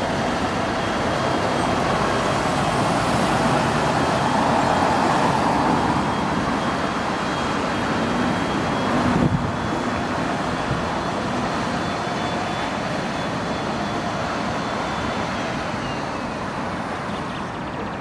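Tatra KT4 articulated tram rolling along street track amid passing road traffic, the noise swelling in the first few seconds. A thin high whine holds through most of it and slides down in pitch near the end, and a single knock comes about nine seconds in.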